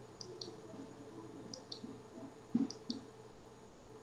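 Computer mouse button clicked three times, each a quick press-and-release double tick, advancing the items of a presentation slide. A soft low knock comes just before the third click.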